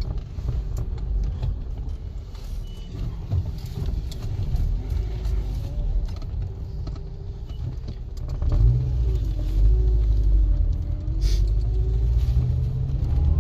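A 1993 Nissan's carburetted engine running steadily. About eight and a half seconds in it gets louder as the revs rise, dip and climb again.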